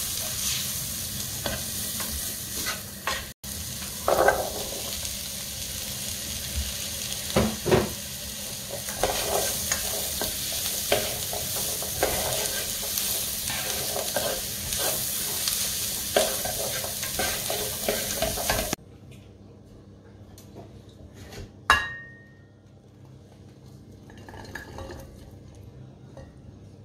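Chickpeas, shallots and spices sizzling in a frying pan while a wooden spatula stirs them, with frequent scraping clicks against the pan. The frying cuts off abruptly about two-thirds of the way through. After that the sound is much quieter, with one sharp clink and a short ring.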